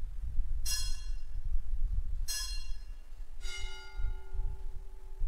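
Altar bells rung at the elevation of the consecrated host: three rings, each dying away, the last with a lower tone that hangs on.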